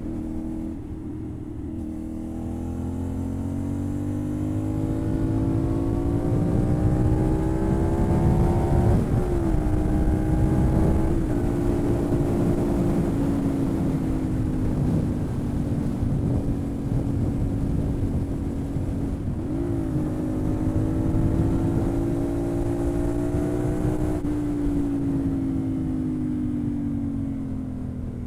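CFMoto 450NK parallel-twin engine through a KO Lightning aftermarket slip-on exhaust, heard onboard while riding. The revs climb for several seconds, with quick dips at gear changes about 9 and 11 seconds in, then hold a steady cruise with another shift around 19 seconds. Near the end the revs fall away as the bike slows, with wind noise on the microphone underneath.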